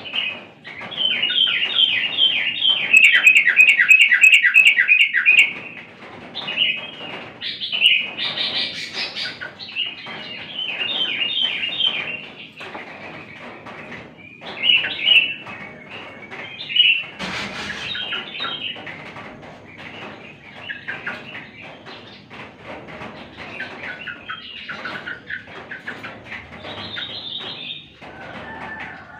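Yellow-vented bulbul (trucukan) singing in full voice: phrases of quick, bubbly chattering notes repeated again and again, with a long run of about four notes a second in the first few seconds.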